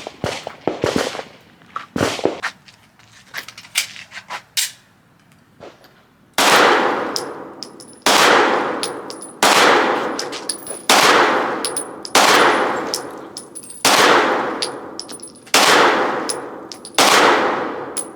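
Gunshots on a firing range. Several seconds of lighter, sharper cracks are followed by a steady series of loud shots, about one every second and a half, each with a long echoing ring-out.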